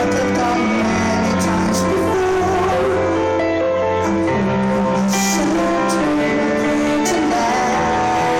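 Rock band music with guitar under long held melody notes, loud and even throughout.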